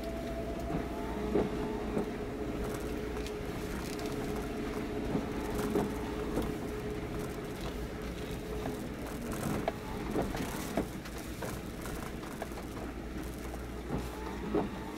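Steady machinery drone from moored purse-seine fishing boats: a hum over a low rumble, with scattered light clicks and taps. The hum's tone drops away a little past halfway.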